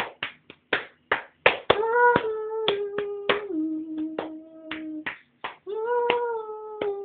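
A young woman singing unaccompanied over her own steady beat of sharp hand claps. The claps go on alone at first; from about two seconds in she holds long wordless notes that step down in pitch, starting high again about six seconds in.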